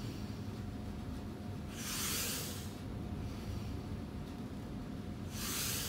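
A man breathing out hard twice while doing floor reverse crunches, once about two seconds in and once near the end, each breath about a second long.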